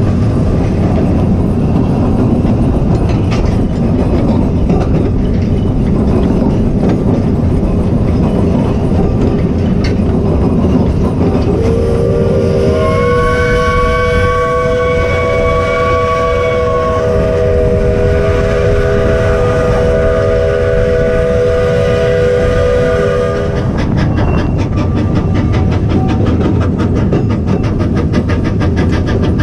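A 2 ft gauge steam train running, heard from the wagon behind the locomotive: a steady rumble and clatter of wheels on the track. Partway through, a steam whistle sounds a chord of several steady tones for about twelve seconds, its notes shifting slightly halfway through.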